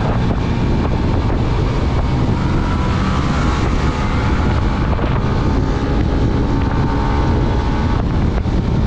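Heavy wind rushing over the microphone of a moving motorcycle, with engine and road noise underneath.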